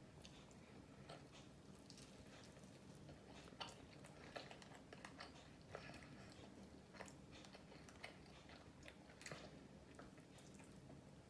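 Faint chewing and biting of KFC fried chicken, with irregular small crunches and mouth clicks.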